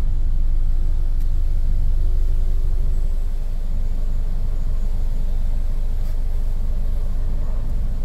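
Toyota Camry's 2AZ-FE four-cylinder engine idling roughly with the AC on, an uneven low rumble. The rough running comes from misfires on cylinders 1 and 4 that the scanner reports; with the AC load the engine shakes and is close to stalling.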